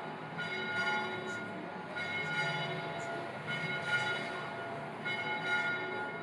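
Bell-like chimes, each a cluster of ringing tones, struck again about every second and a half over a steady background hiss.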